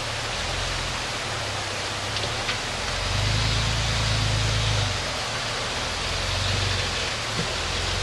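Rock-crawling Jeep's engine rumbling under load as it climbs over rocks, swelling for a couple of seconds about three seconds in and again near the end, under a steady hiss.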